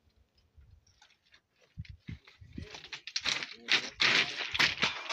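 Irregular crackling and rustling: scattered clicks at first, becoming dense and near-continuous about three seconds in.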